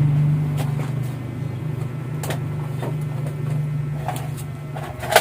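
A steady low engine hum from a motor vehicle that fades out near the end, with scattered light clicks and knocks of objects being handled and a sharper knock right at the end.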